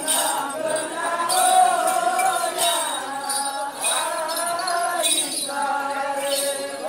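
Group singing of the ohaa chant for the Lamaholot sole circle dance: many voices in unison on long held notes, in phrases of about a second each. A jingling recurs about once a second with the dance's rhythm.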